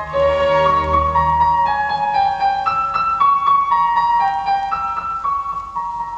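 Piano music played back through Dynaco A-35 loudspeakers fitted with newly replaced crossover-network components. A deep bass line runs under the piano for about the first two seconds, then the piano carries on alone.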